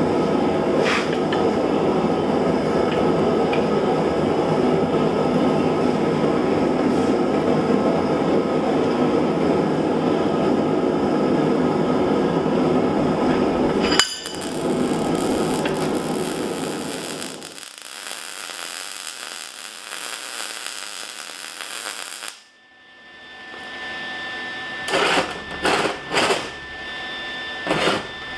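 Steady roar of a blacksmith's forge running, with one sharp metal clank about halfway through, after which the roar fades away. Near the end, a few sharp clanks of steel against a steel worktable.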